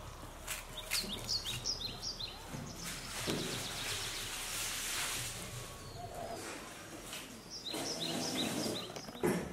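Water poured out of a plastic tub splashing onto the ground for about three seconds, with small birds chirping before and after.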